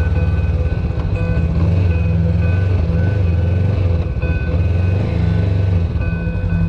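Honda CB500X's parallel-twin engine running steadily at low revs as the motorcycle is ridden slowly and turned around.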